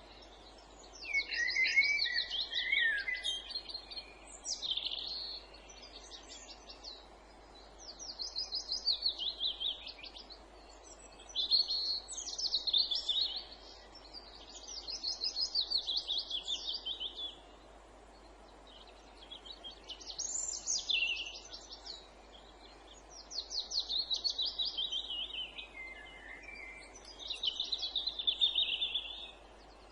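A songbird singing a series of fast trilled phrases, each two to three seconds long and mostly falling in pitch, with pauses of a second or two between them, over a faint steady background hiss.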